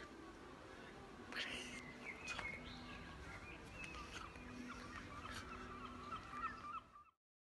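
Birds calling in a string of short, high chirps, with a few soft knocks among them. The sound cuts off abruptly near the end.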